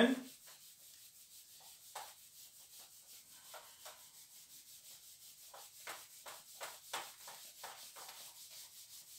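A whiteboard eraser wiping across a whiteboard in repeated strokes. Each stroke makes a faint rubbing swish, about two or three a second.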